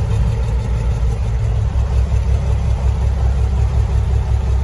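A Cummins diesel in a 1981 Peterbilt 359 idling steadily while still cold, heard from inside the cab.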